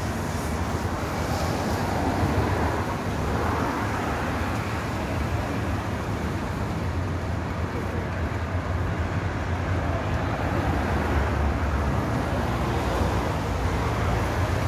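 Road traffic on a multi-lane road: a steady low rumble of cars and vans going by, swelling and fading as individual vehicles pass.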